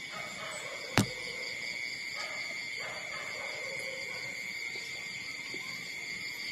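A steady, high, shrill drone of insects, with one sharp click about a second in.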